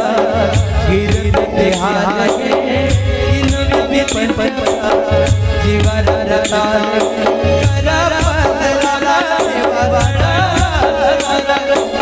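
Marathi devotional song: a wavering singing voice over a steady drone, with a hand drum beating a repeating pattern and jingling cymbals or rattles keeping time.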